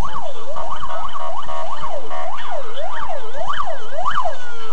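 Emergency vehicle siren yelping, its pitch sweeping up and down about twice a second; it stops near the end.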